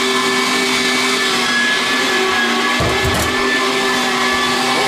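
Electric meat grinder motor running steadily with a constant whine while grinding chicken and onion into mince. A brief low thud about three seconds in.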